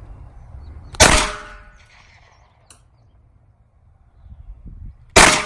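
Two shots from a Glock 43X 9mm pistol, about four seconds apart, each a sharp crack with a short ringing tail.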